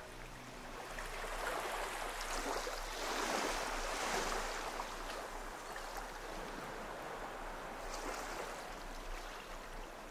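Small waves breaking and washing up a sandy beach; the surf swells twice, a few seconds in and again near the end.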